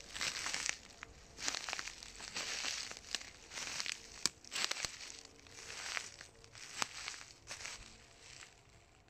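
Footsteps crunching through dry leaf litter and twigs on a forest floor, a step roughly every second, with a few sharp twig snaps. The steps fade near the end.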